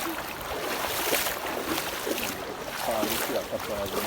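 Steady rush of flowing river water, with faint voices about three seconds in.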